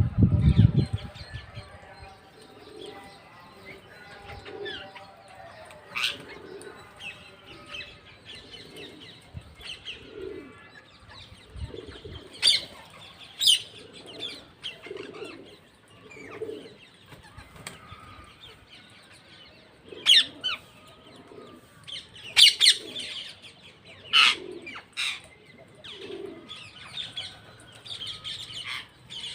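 Parrots squawking in sharp, high calls every few seconds, over a low call that repeats about every second and a half, with a burst of wing flapping at the start.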